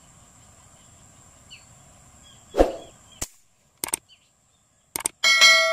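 Subscribe-button animation sound effects: a sharp pop about two and a half seconds in, a few mouse clicks, then a bell ding near the end that rings on and fades. Faint bird chirps and a thin, steady high whine sit underneath.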